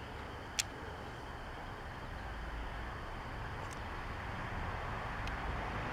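Low steady background hiss, with a single light click about half a second in and two faint ticks later on.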